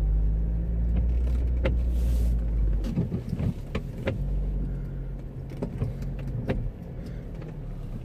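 Car driving slowly on a snow-covered road, heard from inside the cabin: a steady low engine and tyre rumble, with short sharp ticks about once every second or so.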